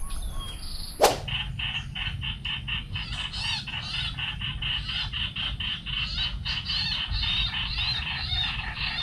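A small bird chirping in a fast, regular series, about five short notes a second. One sharp click comes about a second in.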